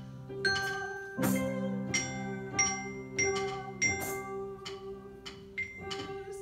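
Glockenspiel played with a mallet: single ringing notes struck one at a time, about one every half second to second, over held keyboard chords in the low register that change about a second in.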